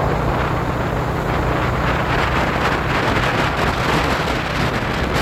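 Wind buffeting the microphone and road noise from a vehicle moving at speed, over a low steady engine hum. The rush drops off suddenly right at the end.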